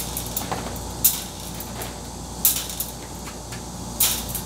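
Eggs being handled from a plastic egg tray and set into the trays of an Rcom Maru Max 200 egg incubator: four sharp light clicks, about a second to a second and a half apart.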